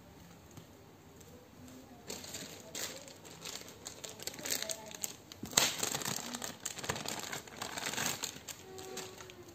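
Thin clear plastic bag crinkling and rustling as a coiled cable inside it is handled, starting about two seconds in, with one sharp tap or knock about halfway through.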